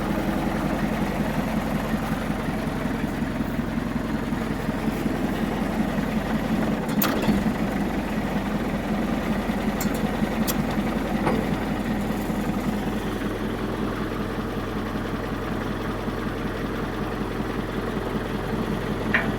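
Case 580 Super K backhoe engine idling steadily after a start following years of sitting. A few short clicks come through in the middle.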